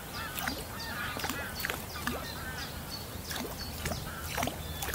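Birds calling: a quick series of short, wavering calls in the first two seconds, then a few brief high whistles, with scattered light clicks.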